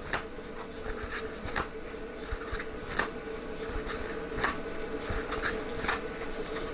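Toilet paper being pulled off and handled on a roll: papery rustling with irregular light crackles and taps.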